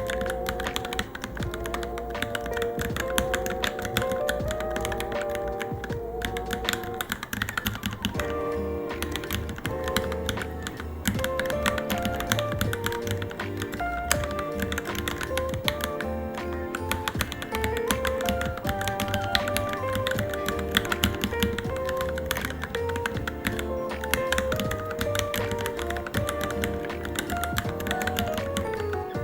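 Fast, continuous typing on a Varmilo Minilo mechanical keyboard, a dense run of key clicks, heard together with background music carrying a melody over a bass line.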